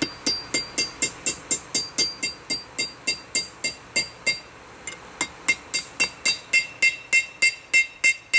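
Hand hammer striking a hot stainless steel nail held in a nail header on an anvil, heading the nail: quick, even blows about three a second, each with a clear metallic ring. The blows break off briefly a little past halfway, then carry on at the same pace.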